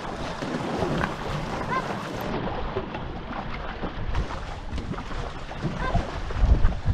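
Water rushing and splashing around a racing two-person canoe as it is paddled, with wind buffeting the microphone. A low wind rumble grows near the end.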